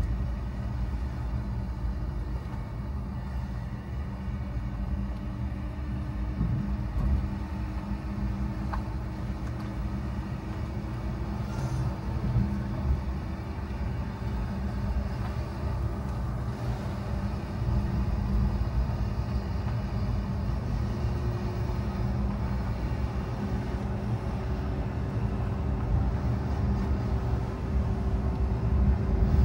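Car driving: a steady low rumble of engine and road noise, with a faint steady hum running through it and no sharp events.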